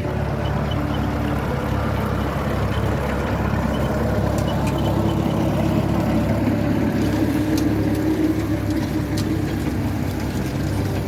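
Tractor engine running steadily, growing a little louder around the middle.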